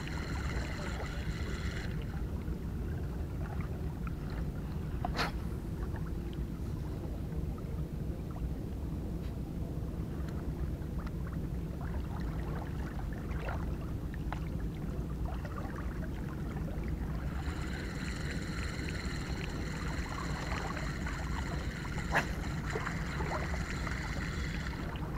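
Steady low rumble of wind and water against the rocks at the shoreline. A high, steady whine made of several tones is heard during the first two seconds and again over the last seven or so, and there are two sharp clicks, one about five seconds in and one near the end.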